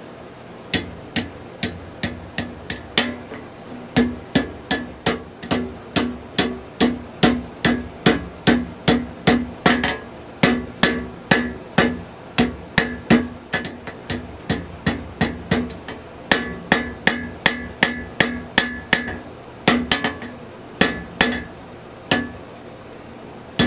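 Blacksmith's hammer striking a heated horseshoe on an anvil, forging it, in runs of about two to three ringing blows a second with a few short pauses between runs.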